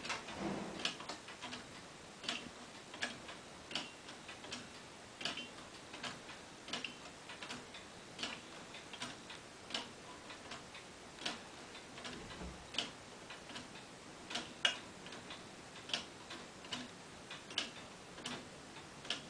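Pendulum clock with a brass grasshopper escapement and a one-second pendulum ticking in a steady, regular beat. The escapement pallets click against the escape wheel, some clicks louder than others.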